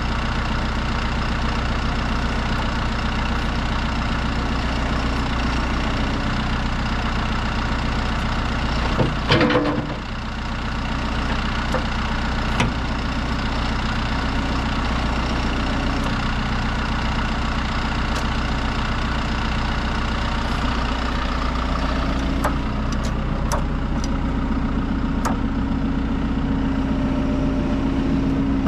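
John Deere 310SL backhoe loader's diesel engine idling steadily. There is a brief louder burst of noise about nine seconds in, and a few sharp clicks in the last third.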